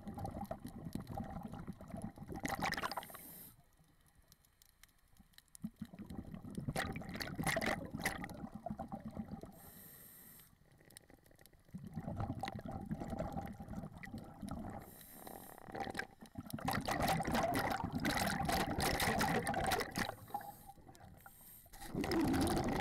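Scuba diver breathing underwater: regulator hiss and rushing, bubbling exhaled air in surges about every five to six seconds, with quieter gaps between breaths.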